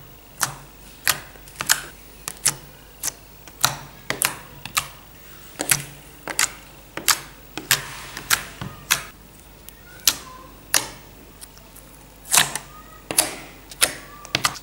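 Fingertips poking into glossy metallic gold slime in a steel tray, each poke and pull-out making a sharp pop, about two a second.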